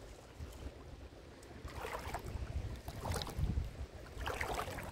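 Sloshing splashes of wading through shallow seawater, three of them a little over a second apart, over a low rumble of wind on the microphone.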